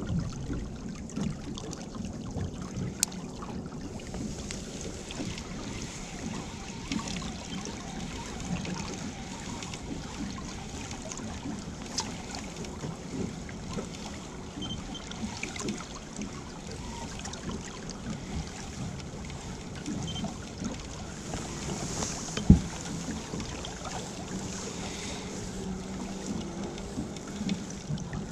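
Small fishing boat drifting on the water: steady sloshing of water against the hull and wind on the microphone, with scattered light knocks and one sharp thump about 22 seconds in.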